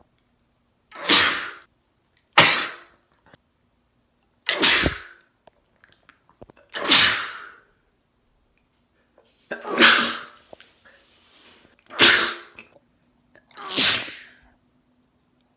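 A man sneezing seven times, one sharp sneeze after another about every two seconds, each a short loud burst.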